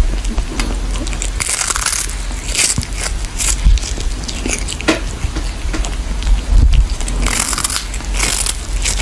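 A kitten chewing on a small fish, with irregular crunching bites.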